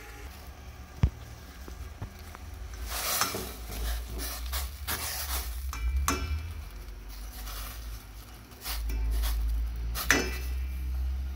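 Tongs clinking and scraping against a stainless steel pot while pechay leaves are turned in hot water to blanch, with one sharp knock about a second in. A low rumble runs underneath and grows louder near the end.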